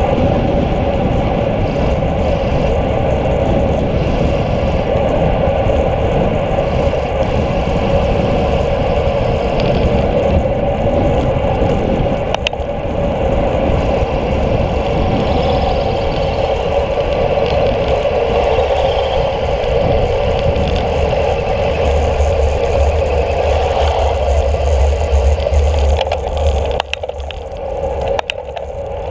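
Steady rush of wind on a handlebar-mounted camera, mixed with tyre hum from a road bicycle rolling on asphalt. It drops away briefly near the end.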